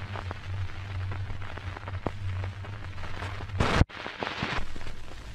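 Surface noise of a 1922 shellac 78 rpm record playing between spoken items: crackle and scattered clicks with hiss over a steady low hum. About three and a half seconds in, a short loud burst of noise cuts off abruptly.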